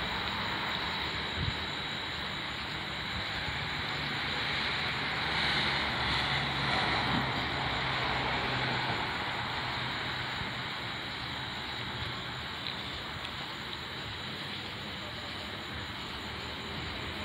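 Steady outdoor background noise: a low hum under a hiss, swelling a little about a third of the way in and easing off later.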